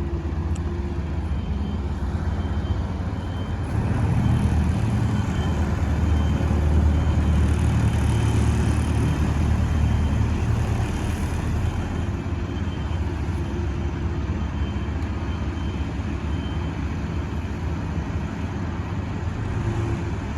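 Diesel engines of heavy road-paving machinery, an asphalt paver and tipper truck, running steadily with a deep rumble that swells for several seconds from about four seconds in.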